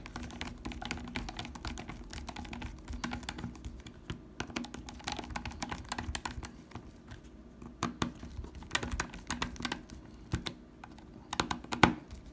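Many small, irregular clicks and taps of hard plastic RC car chassis parts and screws, handled and fitted by hand on a Tamiya TB-01 chassis, over a faint steady hum.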